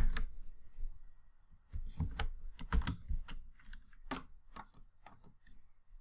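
Computer keyboard typing: scattered single keystrokes with uneven pauses, and a quiet gap a little after the start.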